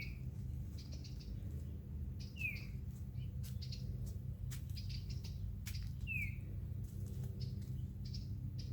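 Small songbirds calling in short chirps: a downward-slurred note comes three times, about every three seconds, with higher short chips in between, over a steady low rumble. These are the calls of parent birds around a fledgling that has just left the nest.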